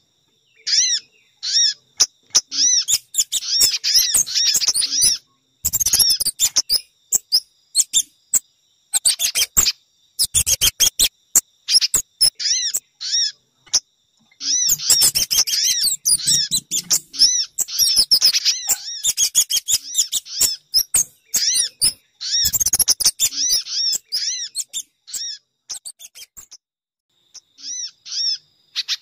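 Bird-lure recording mixing the calls of sogon, pijantung (spiderhunter) and kemade birds: phrases of rapid, high, repeated chirping notes lasting a few seconds each, with short pauses between them. Three times, a brief burst of harsh crackling notes cuts through.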